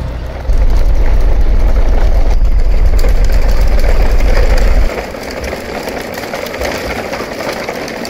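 Large plastic toy dump truck rolling across rough concrete, its wheels making a loud, steady low rumble that starts about half a second in and stops suddenly near five seconds.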